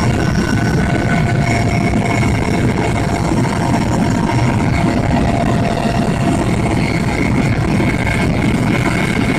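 Helicopter in flight, heard from inside the cabin: a steady, loud drone of engine and rotor, with a faint steady whine above it.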